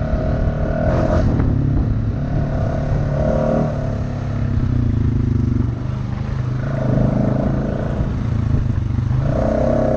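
Honda ATV engine running while riding, its note rising and falling as the throttle is opened and eased off several times.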